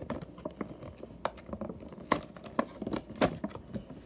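Plastic toy packaging being handled and pulled open, crinkling and crackling irregularly, with a few sharper cracks about two and three seconds in.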